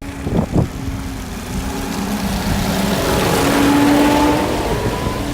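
Motor vehicle passing close by on a country road: a steady engine note that swells to its loudest about four seconds in. Two brief thumps near the start.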